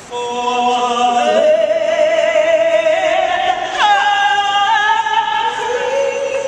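Singing over music, with long held notes that waver slightly and a slide down in pitch about four seconds in.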